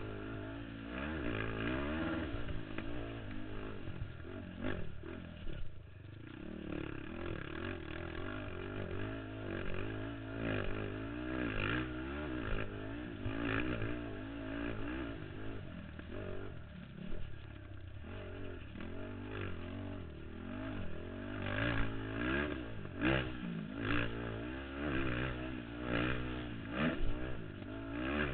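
Racing ATV's engine revving up and down as it is ridden hard around a dirt motocross track, heard from a camera mounted on the quad. In the second half comes a run of sharp knocks, about one a second, as the quad goes over the bumps.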